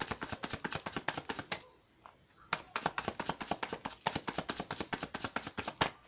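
A deck of Hidden Truth Oracle cards being shuffled by hand: a fast run of crisp card clicks and flaps. It stops for about a second near the two-second mark, then starts again.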